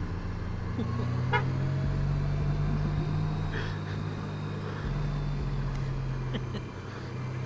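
Honda Gold Wing touring motorcycle's engine running steadily at cruising speed, with wind and road noise.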